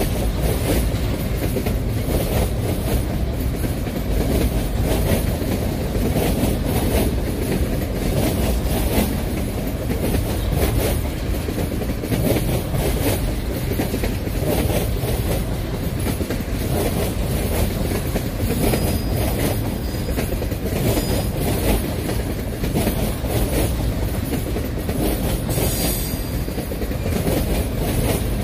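Empty covered hopper cars of a narrow-gauge freight train rolling steadily past at close range. The wheels clatter over the rail joints in a continuous run of clacks over a low rumble.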